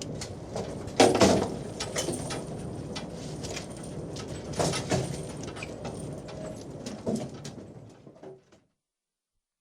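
Working noise on a fishing boat's deck while a catch is hauled aboard: a steady background with scattered knocks and clatters, the loudest about a second in. The sound fades out about eight and a half seconds in.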